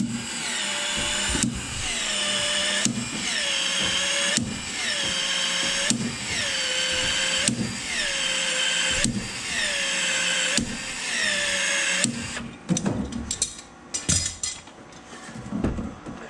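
Powered PEX expansion tool expanding the end of a PEX-A pipe and its expansion ring. The motor runs in repeated strokes about every second and a half, its whine dropping in pitch as each stroke loads up. It stops about twelve seconds in, followed by a few clicks and knocks of handling.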